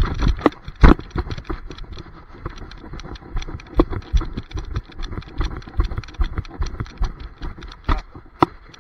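Rapid, uneven knocking and thudding from a camera strapped to a running dog, jolted with each stride, loudest in the first second around the leap for the frisbee.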